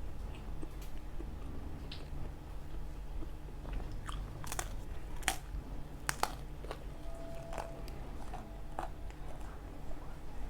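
Close-miked eating of pizza: bites into the crust and chewing, with a few sharp crunches around the middle, over a steady low hum.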